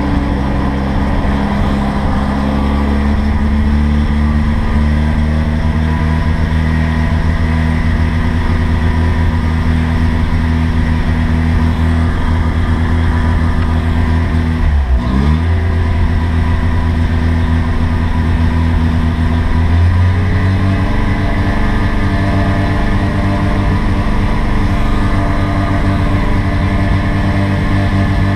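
1985 Mazda RX-7's fuel-injected 13B rotary engine running just after a cold start, still struggling after having been flooded. About halfway through it stumbles, the pitch dropping sharply as if about to stall, then catches and picks back up. A few seconds later the idle rises a little and holds steady.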